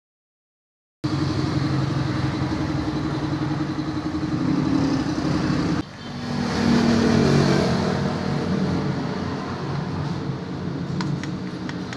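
A motor vehicle engine running steadily, cutting in abruptly about a second in, with a brief drop near the middle.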